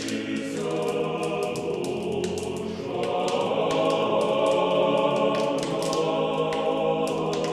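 A choir singing slow, held chords as closing music.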